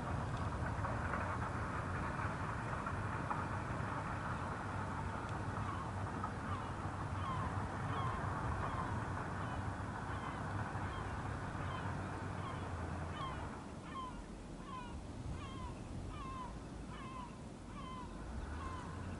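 Distant Airbus A320 jet engines running as a steady rumble and hiss, easing off about two-thirds of the way through. Over it a bird calls again and again, short falling notes about two a second.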